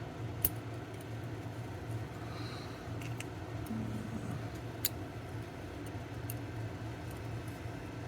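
Small sharp metallic clicks of lock pins and tools being handled while a lock cylinder is taken apart, two louder clicks about half a second in and near five seconds, over a steady low hum.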